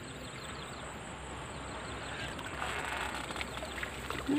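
Water splashing and running off a bamboo-poled lift net as it is hauled up out of a river; the splashing grows over the second half.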